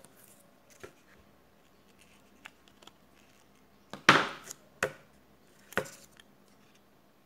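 Small clicks and knocks of a smartphone and its parts being handled on a hard work surface. The loudest knock comes about four seconds in, followed by two more about a second apart.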